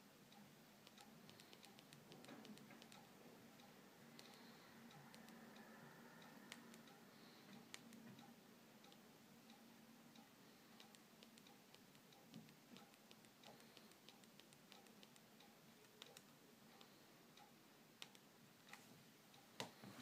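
Faint, irregular clicks of the Sony Ericsson Aino's navigation keys being pressed while scrolling through menus, over low room tone. Near the end come a couple of louder clicks and knocks as the phone is handled.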